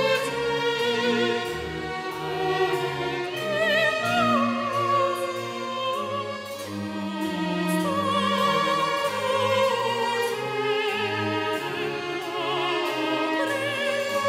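Background classical music: an operatic voice singing sustained notes with wide vibrato over orchestral accompaniment.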